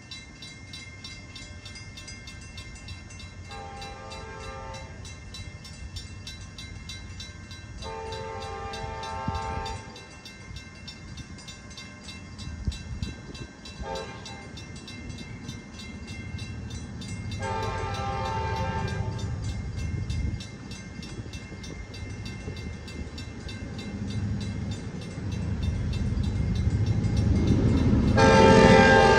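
Locomotive air horn blowing a chord: two long blasts, a short one, then a long one, the grade-crossing signal. A low rumble of the approaching train grows steadily louder, and a much louder horn blast starts near the end.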